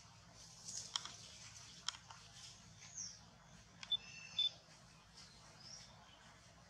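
Newborn macaque giving faint, short, high squeaks, with a few sharp clicks; the loudest is a pair of clicks with a brief high ringing tone about four seconds in.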